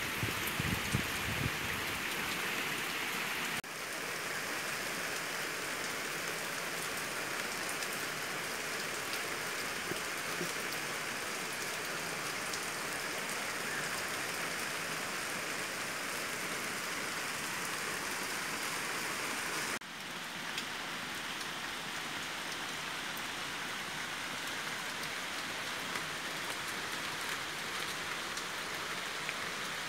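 Monsoon rain falling steadily, an even hiss of drops on leaves and surfaces. It dips for a moment twice where the recording is cut, about four seconds in and again about twenty seconds in.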